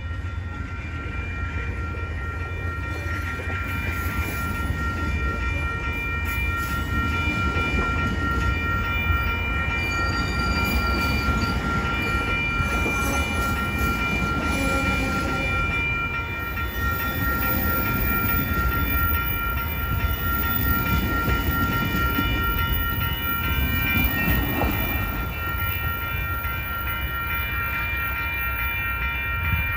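Amtrak Superliner bilevel passenger cars rolling past on the rails: a steady low rumble, with a thin high ringing tone held throughout.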